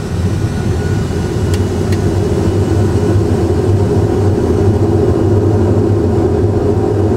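Steady low rumble of an A320 full flight simulator's cockpit engine and airflow noise, growing slightly louder as the landing gear is lowered, with two faint clicks about a second and a half in.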